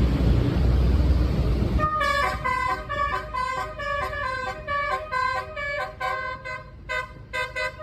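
A bus's Basuri telolet horn playing a rapid multi-note tune of short, shifting horn tones. It follows about two seconds of loud vehicle rumble.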